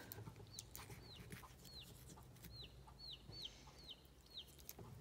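A bird calling: a faint, quick series of short, high notes, each sliding downward, about two a second. A few soft clicks come in between.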